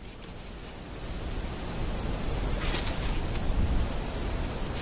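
Crickets trilling in one steady, unbroken high tone over a low rumble that swells during the first two seconds. A brief soft hiss comes a little under three seconds in.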